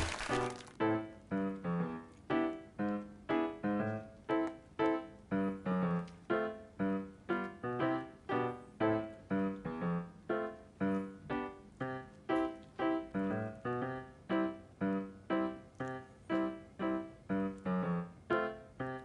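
Background music: a slow piano-like keyboard melody of single notes, about two a second, each note fading away.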